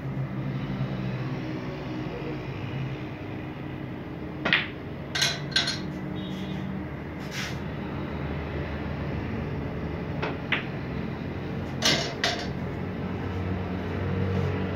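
Snooker balls being played: several sharp clacks of cue on ball and ball striking ball, coming in two groups, around the middle and again about two thirds of the way through, over a steady low hum.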